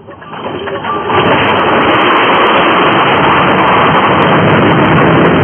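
A truck crashing off the road and tipping onto its side. A loud, continuous rough noise builds over the first second and holds until near the end.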